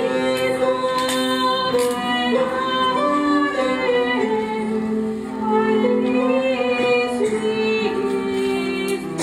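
Medieval music: a bowed vielle (medieval fiddle) holding steady drone notes beneath a moving melody.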